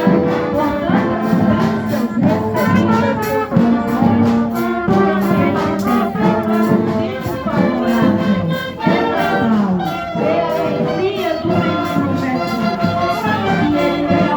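Municipal brass band playing a procession tune: trumpets and trombones carrying the melody over a steady drum beat.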